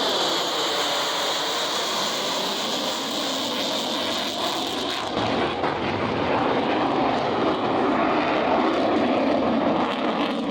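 Fighter jet flying its display, its engine noise steady and loud. A high whine in the first half cuts off suddenly about halfway through, leaving a lower rushing rumble.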